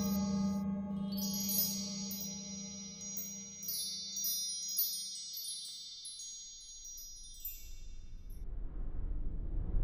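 Soundtrack music of shimmering wind-chime tones, struck repeatedly and ringing out over a low sustained tone that fades away. Near the end the chimes die out and a rising whoosh swells up.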